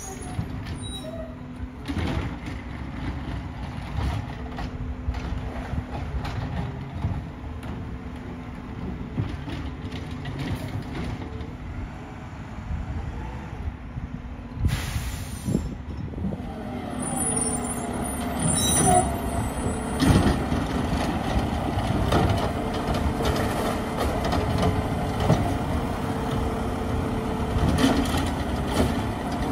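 Mack MRU refuse truck with a McNeilus ZR side loader, its engine running with a steady hum. There is a burst of air-brake hiss about halfway through. The truck gets louder and busier in the second half.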